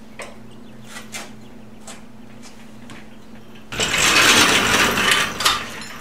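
Metal motorcycle scissor lift scraping and rattling loudly for about two seconds as it is pulled out across the concrete floor from under the lowered bike. This follows a few light clicks from the lift as it is let down.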